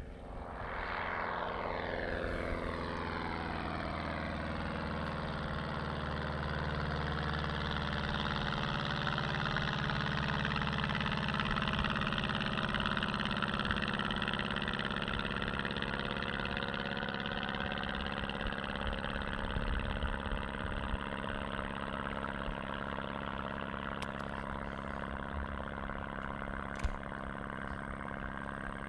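Single-engine light propeller plane flying past low after takeoff and climbing away, its engine running steadily. The drone sweeps down in pitch over the first few seconds as the plane goes by, then holds as a steady hum.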